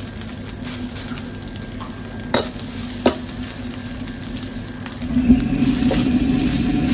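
Rice sizzling in a hot wok as a ladle stirs and pushes it around, with two sharp knocks of the ladle against the wok in the middle. About five seconds in, a louder low steady rumble joins.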